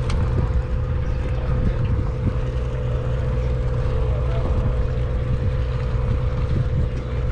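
Party boat's engine running steadily: a constant low drone with a steady hum over it, with some wind.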